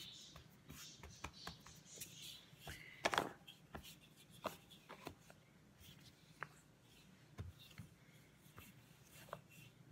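Marble rolling pin working dough on a cutting board: quiet scattered clicks and soft knocks as the pin and hands move on the board, with one louder knock about three seconds in.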